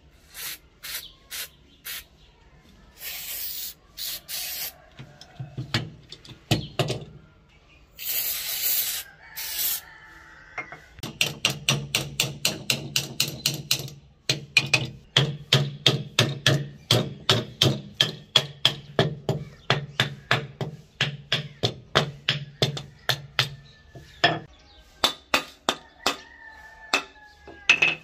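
Metal clicking and scraping as the rusty bolt of an antique German bolt-action rifle is worked in its receiver. Sharp clicks come in a fast, fairly regular run through the middle, with a few rasping slides earlier. Birds chirp faintly near the end.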